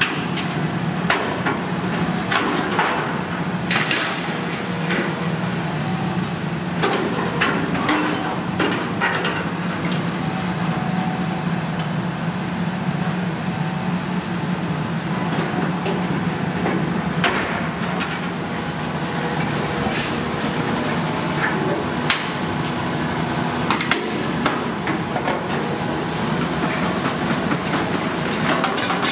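Volvo EC480E high-reach demolition excavator's diesel engine running steadily under load while its demolition attachment breaks up a steel silo structure, with irregular knocks, clangs and crunches of metal and concrete debris.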